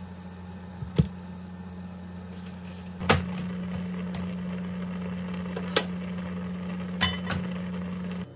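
Steady electric hum from a cooktop heating a pan of boiling water with kalguksu noodles in it, growing louder about three seconds in. Four sharp knocks come through, the loudest about a second in.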